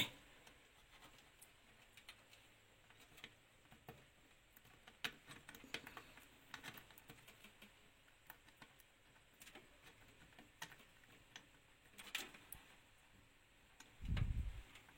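Faint scattered clicks and taps of small plastic connectors and cables being handled as a front-panel USB cable is plugged into a motherboard header. A single low thump comes near the end.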